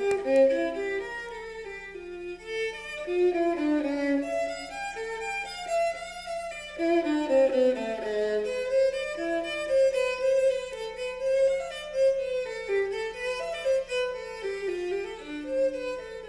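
Recorded violin music, a bowed melody with lower accompanying lines, played back through a Western Electric horn loudspeaker system (4165 speaker driven by 1126 and 59 amplifiers). A faint steady low hum sits underneath.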